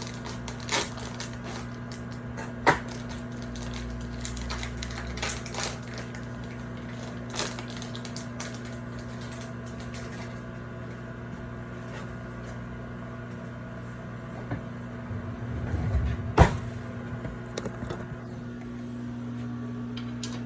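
Microwave oven running with a steady low hum, while a packaged salmon fillet is handled and cut open: scattered clicks, knocks and crinkling of packaging, with a sharp knock about three seconds in and the loudest one near the end.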